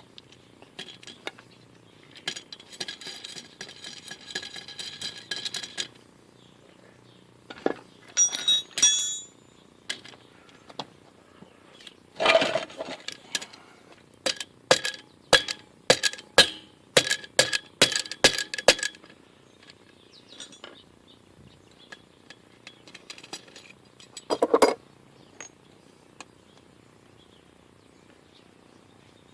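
Metal tool parts clinking and rattling as a homemade all-thread puller's nuts, tubes and washers are worked loose and taken off the axle, with a run of sharp metal knocks in the middle and one more knock later.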